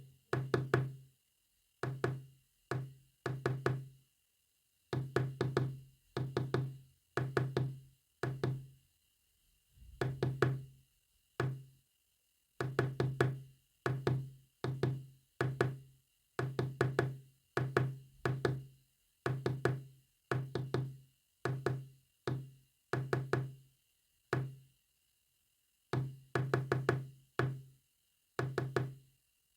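Morse code sent as a low, buzzy tone keyed on and off: short and long beeps of uneven length, separated by silent gaps of varying length.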